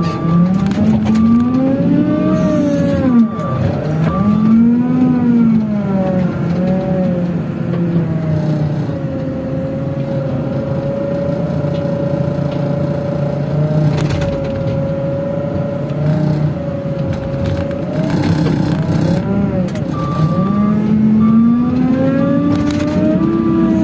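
JCB wheel loader's diesel engine heard from the cab, revving up and down as the machine works the bucket, steady through the middle and rising again near the end. A beeping alarm sounds about twice a second at the start and again near the end.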